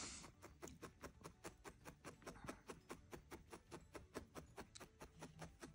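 Single felting needle stabbing repeatedly through a ball of core wool into a felting pad: faint, even ticks, about five a second.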